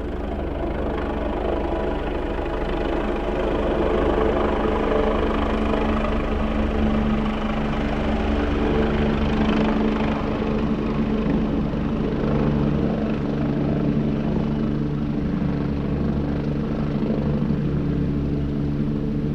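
Helicopter landing: the rotor and engine run steadily with a deep, even drone. The sound grows louder over the first few seconds, then holds, its hiss thinning somewhat in the second half.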